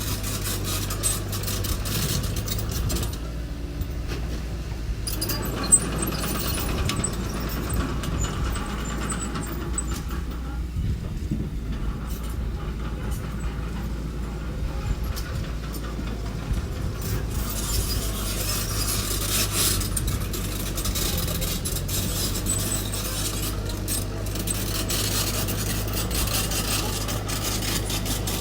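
A mini bulldozer's engine running steadily as it works, with metallic clanking and rattling over the drone and one sharp knock about six seconds in.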